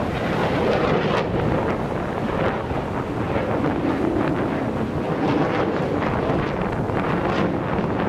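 Wind buffeting the microphone: a steady rushing with gusty flutter.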